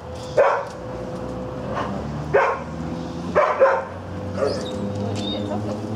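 Dogs barking in play: about four sharp barks, two of them close together near the middle, then a few faint high yips, over a steady low hum.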